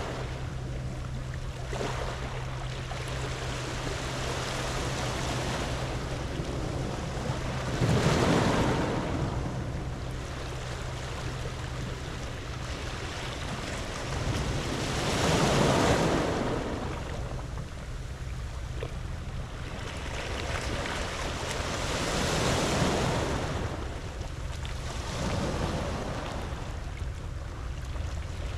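Sea waves washing in on a pebble beach. The surf swells four times, loudest about eight and sixteen seconds in, over a steady wash of water noise.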